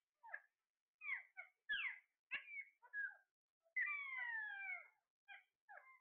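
Alexandrine parakeets giving a string of short calls, most of them falling in pitch, with one longer falling call about four seconds in.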